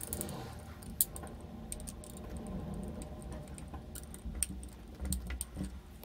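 Light clicks and taps of a screwdriver, wire and plastic switch body being handled as a wire is screwed into a switch terminal, with one sharper click about a second in and a cluster of clicks near the end.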